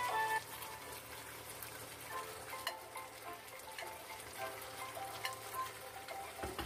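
Chicken pieces sizzling and crackling in a frying pan as they are stirred with a wooden spatula, with faint music underneath.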